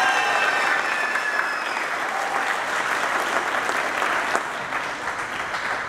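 Audience applauding, with the last held notes of the song fading out in the first second or so. The clapping thins out near the end.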